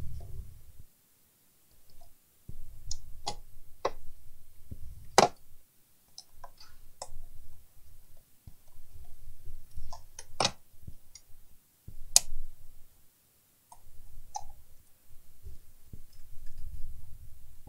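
The sheet-metal case of an HP desktop PC power supply being handled and turned over on a workbench: scattered sharp clicks and knocks, a few much louder than the rest, over low rubbing and handling noise.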